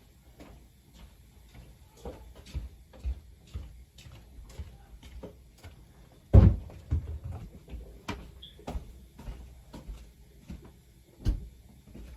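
A string of irregular knocks and clicks, with a heavy thump about six seconds in and another near the end.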